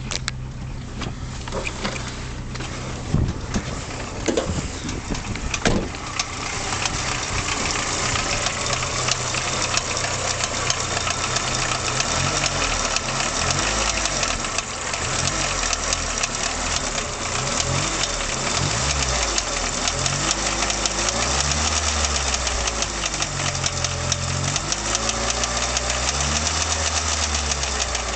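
Mk2 VW Golf 1.3-litre carburettor four-cylinder petrol engine running with a fast, steady knocking, the engine knock the car is being checked for. In the second half the revs rise and fall several times.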